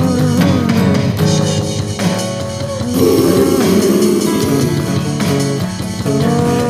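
Rock band playing an instrumental passage of guitars with bass and drums, with notes that bend in pitch.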